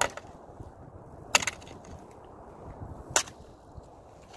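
Thin skim ice on the water cracking sharply three times as a kayak paddle breaks through it, the snaps about a second and a half apart.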